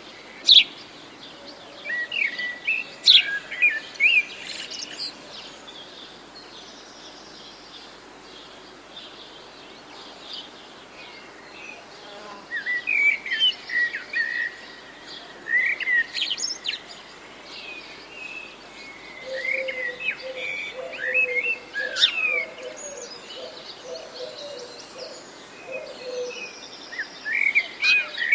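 Small birds chirping and singing in clusters of quick phrases, busy for the first few seconds, sparse for a stretch, then busy again from about twelve seconds in, with a lower steady note underneath at times.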